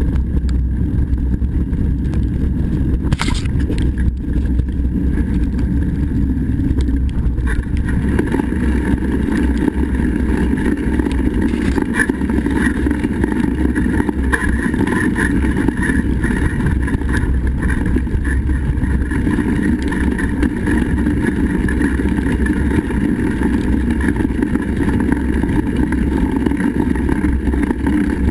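Steady wind rumble on the camera microphone mixed with tyre and ride noise as a rider travels fast along a sandy forest trail, with a single sharp knock about three seconds in. The rumble gets louder from about eight seconds in.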